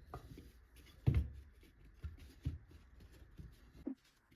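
Wooden branch pieces being handled: a few soft knocks with light rustling in between, the loudest knock about a second in.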